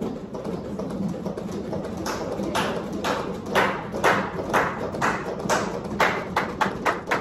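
Chest compressions on CPR training manikins, several trainees at once: a rhythmic clicking at about two a second that starts about two seconds in and quickens slightly near the end.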